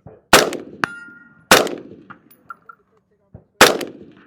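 Three AR-15 rifle shots, about a second and two seconds apart. About half a second after the first, a steel target rings from a hit.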